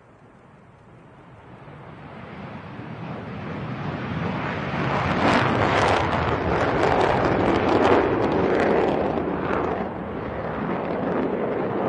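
Rockwell B-1B Lancer bomber taking off and climbing past, its four General Electric F101 turbofans making a loud rushing jet noise. The noise builds steadily over the first few seconds to a crackling peak about halfway through, then eases slightly.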